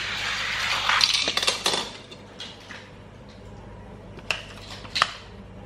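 Hot Wheels die-cast car rattling along plastic track for about two seconds, with clicks and clatter, followed by a few sharp plastic clicks near the end.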